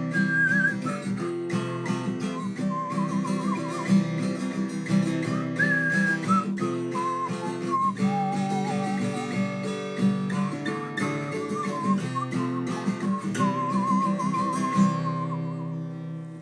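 Acoustic guitar music with a wavering lead melody over it, fading out near the end.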